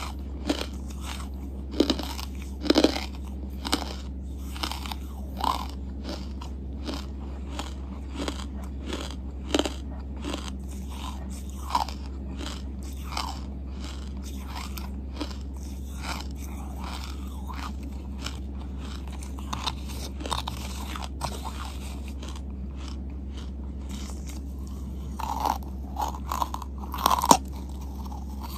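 Close-miked chewing and crunching of charcoal in the mouth: scattered crisp crunches and wet chewing, with a run of louder bites near the end. A steady low hum sits underneath.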